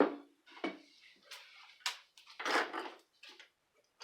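Light, scattered clinks and clatter of small metal tools and parts being handled: several short clicks and a brief scraping rustle a little past halfway.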